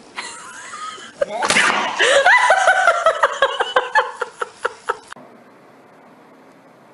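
A person laughing hard in quick repeated bursts that slowly fall in pitch, then cutting off abruptly about five seconds in. A sharp smack comes near the start of the laughter.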